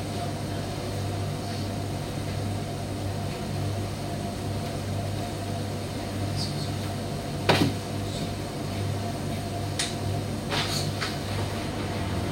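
Primus commercial tumble dryer running: a steady low motor-and-drum hum that swells and fades gently, with one sharp knock about halfway through and a few lighter clicks near the end as the load tumbles against the drum.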